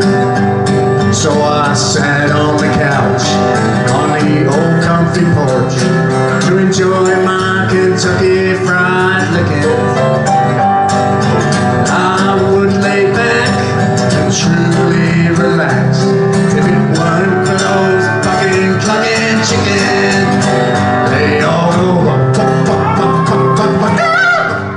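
A live country-folk song: an acoustic guitar and a piano accompany a man singing.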